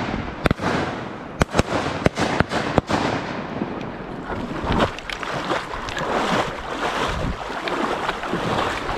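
Shotgun shots at geese over a river: about six sharp blasts in quick succession within the first three seconds. After them comes the steady rush of river water with some splashing.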